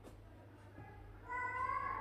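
A child's soft, high-pitched voiced sound in the second half, a short tone that rises slightly in pitch.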